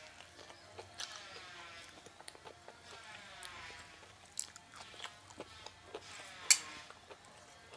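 Close-up eating sounds: chewing and biting with frequent wet mouth clicks. There is one sharper, louder click about six and a half seconds in.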